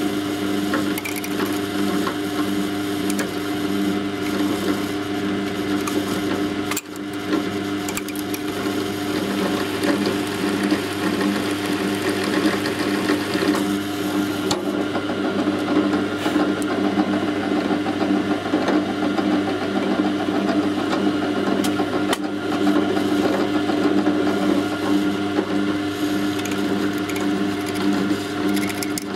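Drill press motor running steadily with a small twist bit, drilling into a broken-off screw stub in a Bakelite meter terminal block. A steady hum that dips briefly about seven seconds in.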